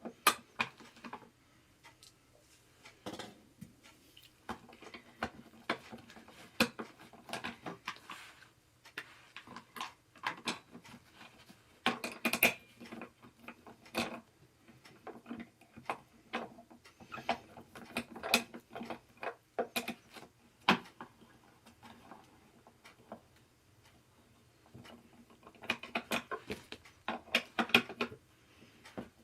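Irregular clicks, taps and light clinks of chair parts and tools being handled during gaming-chair assembly, with a denser run of clicks near the end.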